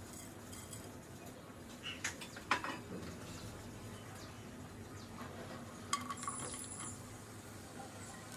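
Light clinks of metal utensils against a nonstick frying pan: a few taps about two seconds in, the loudest at about two and a half seconds, and another short cluster around six seconds, over a faint steady hiss.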